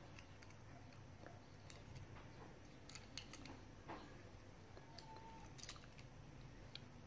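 Near silence with faint scattered clicks and taps as fingers handle a small die-cast toy car, over a low steady hum.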